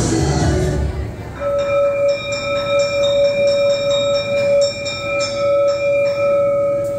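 A song stops about a second in. Then a bell sounds, a steady ringing tone with rapid repeated higher strikes over it for several seconds, the strikes ending near the end while the tone rings on. It is played as a school bell sound effect, signalling the end of class.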